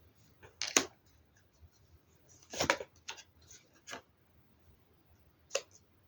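Tarot cards being handled on a table: a few short rustles and snaps as cards are drawn and laid down, the loudest about a second in and again near the middle.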